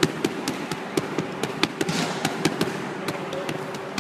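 Boxing gloves smacking focus mitts in fast short-burst combinations: a rapid, uneven run of sharp slaps, about four or five a second, over a steady low hum.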